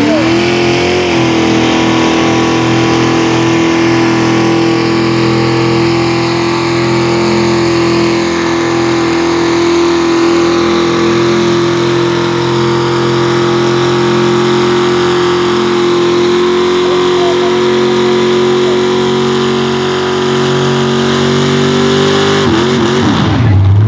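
Mega mud truck's engine held wide open at high, steady revs as the tractor tires churn through the bog. The revs drop off near the end.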